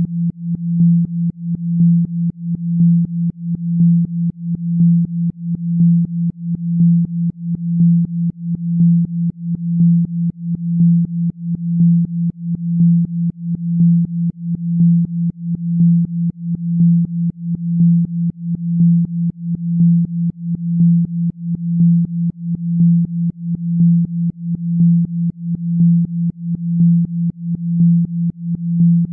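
A single low electronic tone, a Rife-style 'healing frequency', pulsing in a steady repeating rhythm.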